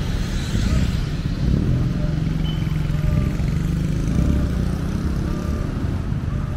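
Street traffic: motorcycle and car engines running steadily.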